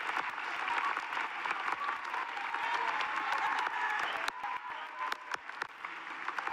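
Audience applauding, dense at first and thinning to scattered individual claps in the last couple of seconds.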